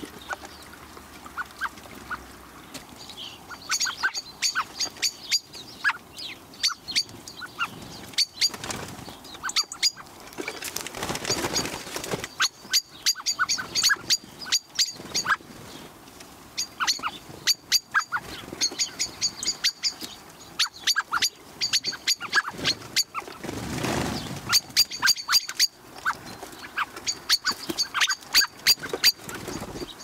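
Common blackbirds squabbling, giving sharp, high chink calls in quick runs of about five a second, with two brief rushing noises in between.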